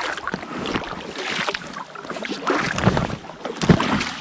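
Kayak paddles dipping and splashing in the water in an irregular rhythm, with a louder splash near the end.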